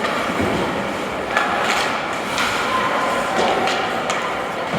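Ice hockey play in an arena: a steady rink din with several sharp knocks of sticks, puck and boards, and faint voices in the crowd.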